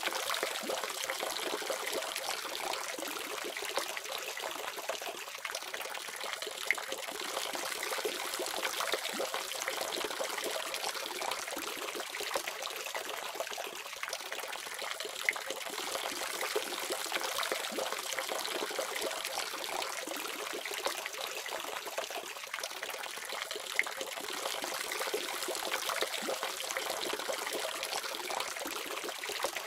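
Water running steadily from a faucet, an even splashing hiss with a few brief louder splashes.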